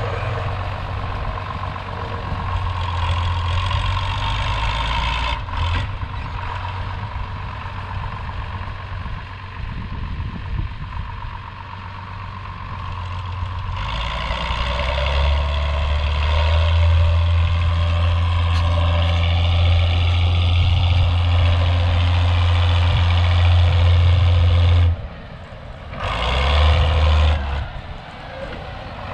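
John Deere tractor's diesel engine running steadily. It grows louder about halfway through, cuts back sharply near the end, surges briefly and then drops again.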